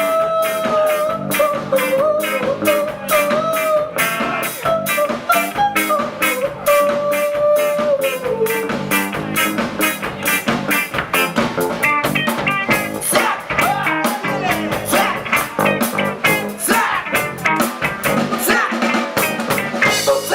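Band music: drum kit keeping a steady beat under guitar, with a long held melody line, perhaps a voice, in the first half.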